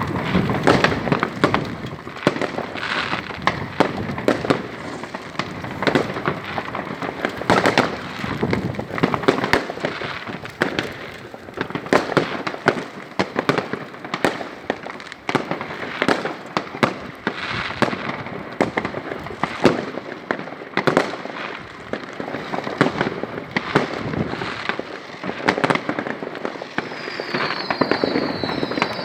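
New Year's Eve fireworks and firecrackers going off nonstop: a dense run of sharp bangs over a constant crackle. A high whistling joins in near the end.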